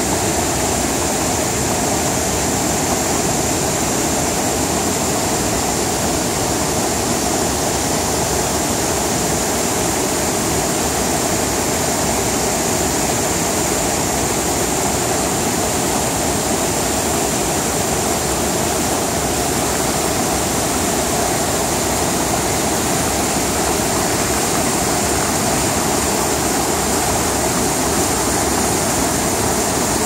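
Waterfall cascading down a rock face into a pool and over rocks: a loud, steady, unbroken rush of water.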